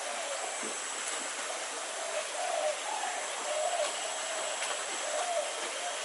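Steady outdoor hiss with a thin, steady high whine, over which an animal gives short, low, wavering calls, about one a second.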